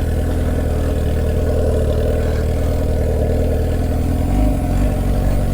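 Motorcycle engine running at a steady speed, with no revving. The low rumble grows stronger about four seconds in.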